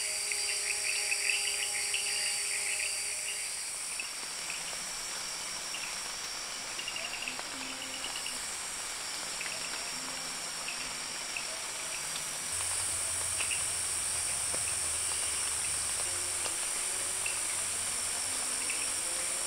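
Jungle insects chorusing: a steady high-pitched buzzing with rapid chirping clicks under it. The mix shifts abruptly about four seconds in and again about twelve seconds in.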